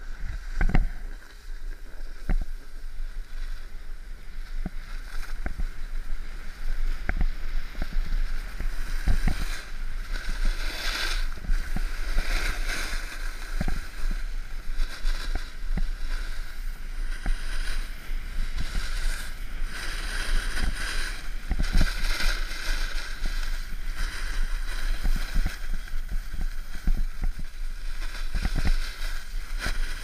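Snowboard sliding and carving over packed snow, a scraping hiss that swells and fades through the turns, under a steady rumble of wind buffeting the action camera's microphone, with occasional knocks.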